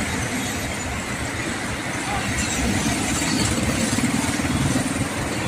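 Excavator's diesel engine running steadily, growing a little louder from about two and a half seconds in.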